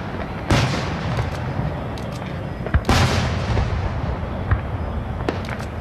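Fireworks going off: two loud shell bursts about two and a half seconds apart, each trailing off, with scattered cracks and pops between them.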